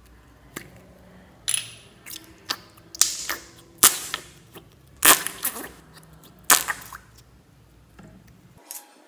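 A small plastic soda-can-shaped slime container is handled and opened, and the slime is worked out of it: a run of sharp clicks and crackling pops over about six seconds, which then fall quiet near the end.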